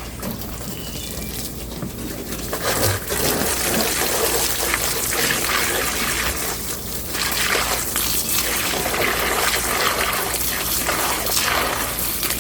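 Water running and splashing over rusty metal grill grates, rinsing off Bar Keepers Friend cleanser. The flow is quieter at first and gets louder about two seconds in.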